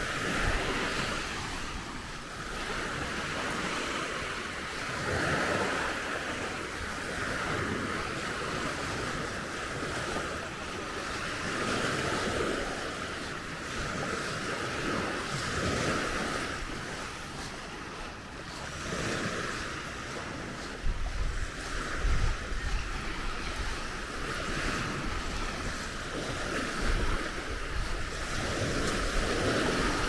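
Small sea waves washing onto a sandy beach, swelling and falling back every few seconds. From about two-thirds of the way through, gusts of wind buffet the microphone with low rumbles.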